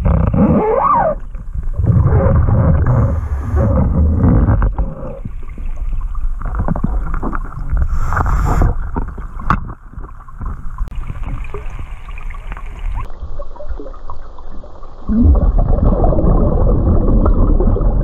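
Scuba diver's regulator breathing underwater: a short hiss on each inhale, about three seconds in and again about eight seconds in, and a low bubbling rumble of exhaled air, loudest near the start and in the last three seconds.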